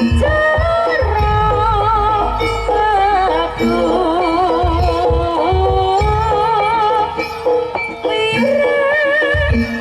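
Javanese jaranan music: a wavering, vibrato-laden lead melody over drums and low booming tones, which thin out for a couple of seconds near the end.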